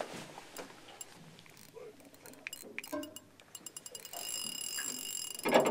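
A spinning reel under heavy load from a big fish. Ticking begins about three and a half seconds in and runs together into a steady high buzz, the way a reel's drag or gears go when line moves fast. A louder knock comes near the end.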